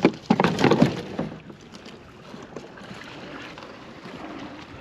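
A few quick knocks and clatters against the kayak in the first second, then a steady low hiss of wind and water on the open-water microphone.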